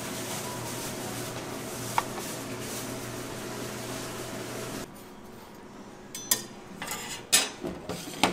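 A steady machine hum with a single click about two seconds in, cutting off abruptly about five seconds in; then several sharp clinks and clatters of dishes and utensils being handled.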